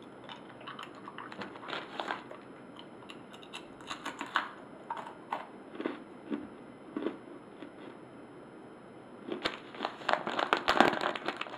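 Whole roasted snack crab being chewed, its hard shell crunching in a run of short crackles, denser and louder near the end.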